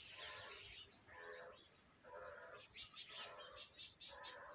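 A flock of small songbirds chirping, with many quick high chirps overlapping. Under them, a lower call repeats about once a second.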